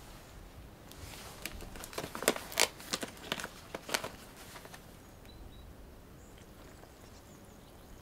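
Plastic meal pouch crinkling and crackling as it is handled and opened, a quick run of sharp crackles lasting about three seconds, then quiet handling.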